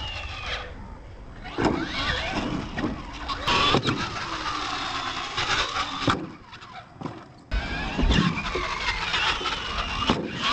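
Radio-controlled monster truck driving on a dirt course, its motor whining up and down in pitch as the throttle is worked. The sound cuts abruptly a couple of times.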